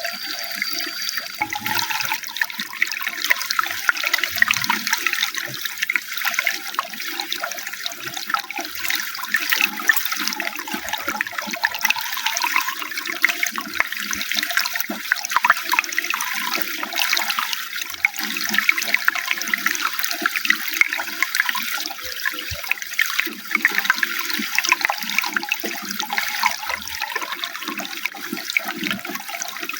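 Running water splashing steadily close to the microphone, a dense, even rush of small splashes.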